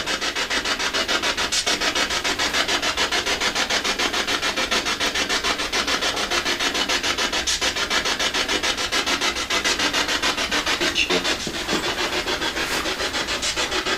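P-SB7 spirit box (ghost box) scanning through radio stations: a steady choppy hiss of static, pulsing about five times a second as it sweeps from one frequency to the next.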